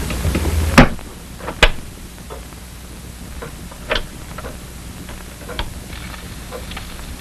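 A low hum stops with a sharp click just under a second in. A second loud click follows, then scattered, irregular light clicks and knocks.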